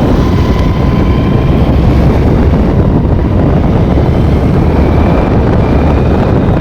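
Honda Dio BS6 scooter's single-cylinder engine running as it is ridden, under loud, steady wind rumble on the microphone. The exhaust note is smooth with no rattle: the silencer leak has been welded shut.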